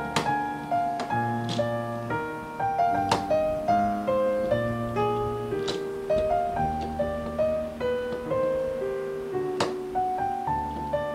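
Background piano music: a light melody of short notes over held bass notes, with a few sharp accents.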